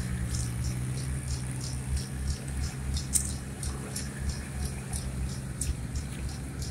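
An engine running steadily with a low hum, with faint high ticks repeating a few times a second over it.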